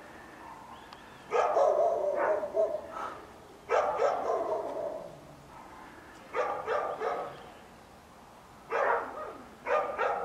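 A dog barking in five bursts of several quick barks each, a few seconds apart.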